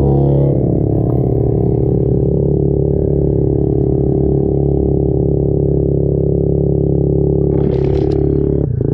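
SSR 70 minibike's small four-stroke single engine running at a steady, high speed as it is ridden along a trail. Near the end there is a brief rush of noise, and the engine note drops for a moment just before the end.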